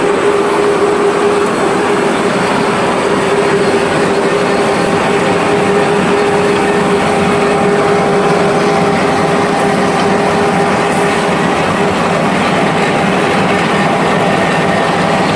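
XY-OQ-7000C high-speed dental bib making machine with printing units running in production: a steady, dense mechanical clatter with a constant humming tone.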